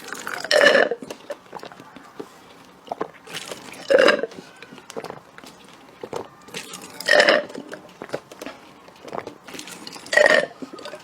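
A person burping: four short, loud burps about three seconds apart, with faint small mouth clicks between them.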